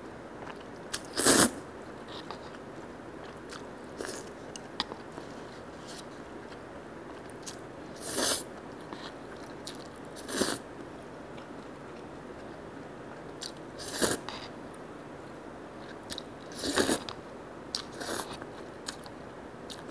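Thin konjac bibim noodles being slurped, about six short hissing slurps at uneven intervals, the loudest about a second in, with quiet chewing and small mouth clicks between.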